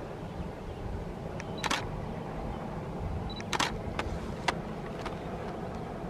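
Steady low rumble of the distant steam train with locomotive N42 running along the line, with a few sharp clicks or clanks about two seconds in and several more past the middle.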